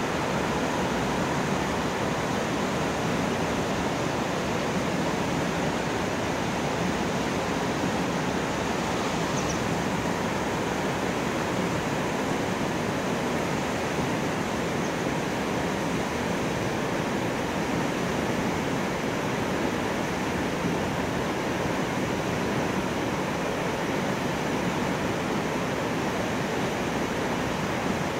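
River water rushing through open sluice gates: a steady, even roar of falling water that does not change.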